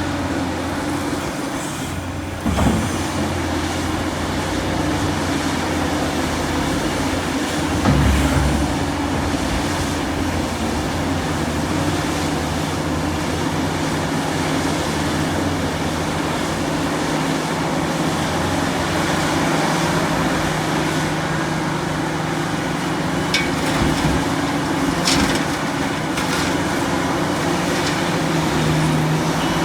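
Large excavator's diesel engine running steadily under load, with heavy thuds about two and a half and eight seconds in and a few short metallic clanks near the end.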